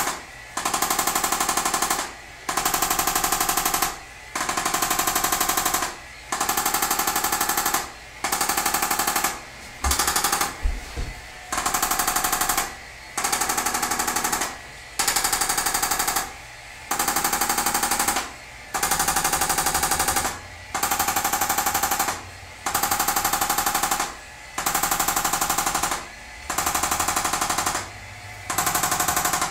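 Arthrostim handheld chiropractic adjusting instrument firing rapid taps against the back, in bursts of about a second and a half separated by short pauses. It is giving a low-force adjustment to the muscles beside the spine.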